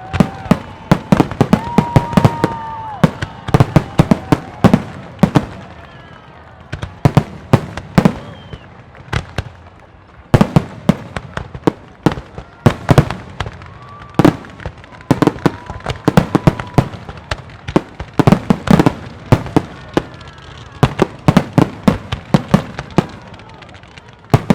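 Aerial fireworks display: rapid, irregular volleys of shells bursting, sharp booms and crackles several per second at times, with a few whistling tones among them. The volleys thin out briefly a little before the middle, then build again.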